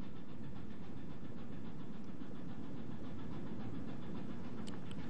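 Steady low rumble of a ship's engine running, with two faint high clicks near the end.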